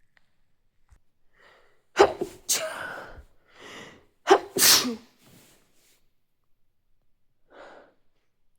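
A person sneezing twice, about two seconds apart, each sneeze a sudden loud burst after a short in-breath, with a softer breath near the end.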